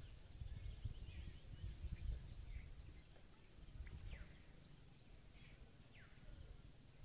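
Faint outdoor ambience: a low rumble with scattered bird calls, short chirps and a couple of quick falling whistles around four and six seconds in.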